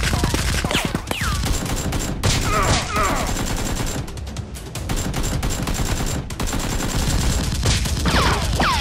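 Gunfire sound effects dubbed over a Nerf-blaster fight: rapid automatic fire in bursts, with short breaks between them.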